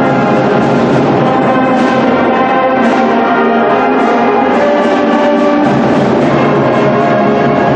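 Orchestral music with brass, bell-like tones and timpani playing steadily.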